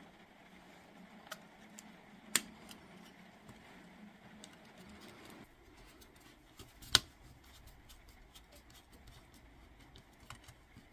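Faint clicks and taps of a small screwdriver driving a screw that fixes a replacement circuit board into a Makita 18 V battery pack's plastic case. There are two sharper clicks, about two and a half and seven seconds in, and a faint low hum that stops about halfway through.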